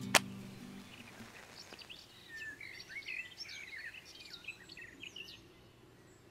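A match struck sharply once on a matchbox, as a guitar chord fades out. Songbirds then chirp for a few seconds.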